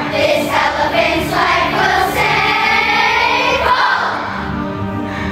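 Children's school choir singing together, loud and sustained, easing a little in volume about four seconds in.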